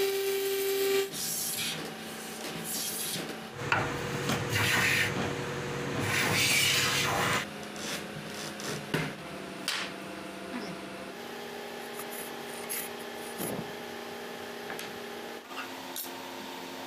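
Hand strokes rubbing and shaving along the edge of an oak board, loudest and densest between about 3.5 and 7.5 seconds in. They come after a steady machine hum that cuts off about a second in.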